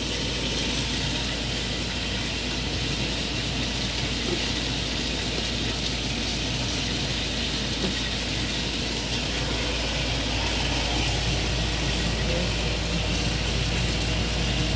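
Steady sizzle of chicken legs frying in lard in a covered pan, over a constant low rumble.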